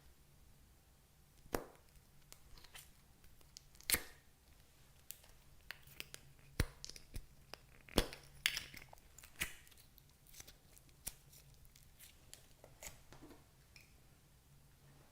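Scattered sharp taps and clicks with light crinkling and rustling, the sound of small objects and packaging being handled on a hard surface, the loudest taps about a second and a half, four, six and a half, and eight seconds in.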